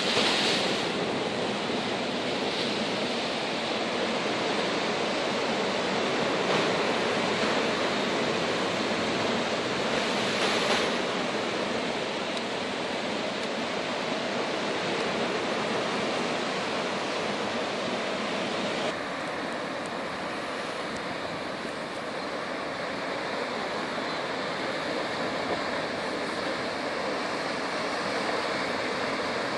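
Steady rush of sea surf, with brief louder swells near the start and about ten seconds in; the noise changes abruptly about two-thirds of the way through.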